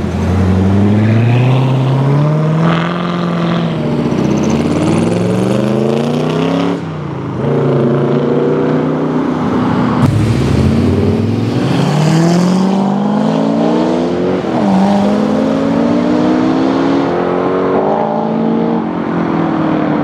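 Chevrolet Corvette V8 engines accelerating away one after another, each note climbing in pitch, dropping at a gear change and climbing again.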